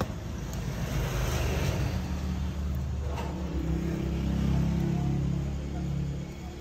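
A motor vehicle engine running with a low rumble, growing louder to a peak about four to five seconds in, then easing off.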